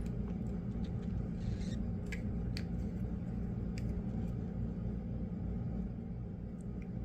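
Steady low hum with a few faint, light clicks and taps as small headphone hinge parts and a screw are handled.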